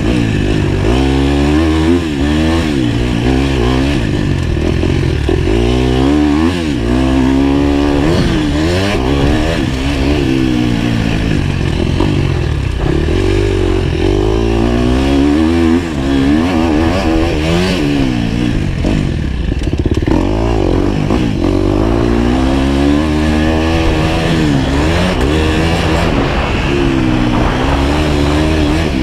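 Engine of a GasGas dirt bike being ridden hard, revving up and dropping back again and again as the throttle is opened and shut, its pitch rising and falling every second or two.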